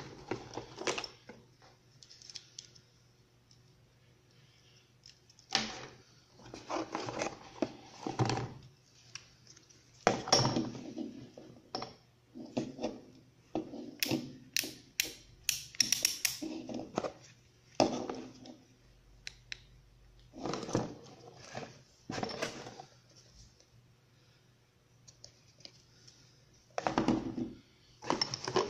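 Unboxing handling noises: a cardboard box, charger cables and a plastic headlamp knocked and rustled in the hands in irregular bursts, with a quick run of sharp clicks about halfway through.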